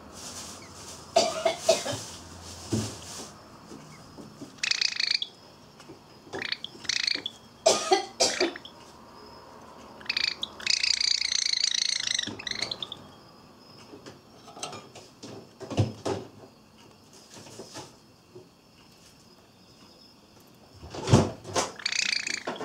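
Java sparrow giving harsh, agitated calls in short bursts, with a longer unbroken run of calls in the middle, mixed with sharp knocks as it pecks and tugs at a leaf of komatsuna. The bird is angered because the leaf moves when it tries to eat it, as its owner believes.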